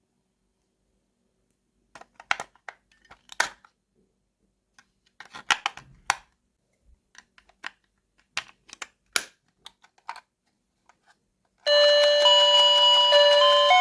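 Light clicks and taps of small plastic toy pieces being handled, then near the end a loud electronic beeping tune starts, a simple melody of stepping notes like a toy's sound chip.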